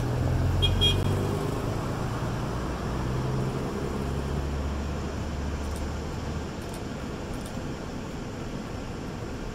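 1900 class diesel railmotor RM1901 pulling away, its engine running with a low throb that fades as it draws off. The deep note drops out about six and a half seconds in, leaving a faint steady hum.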